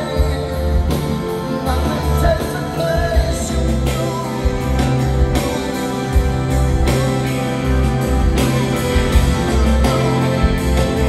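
A rock band playing live with electric guitar, a steady beat and singing.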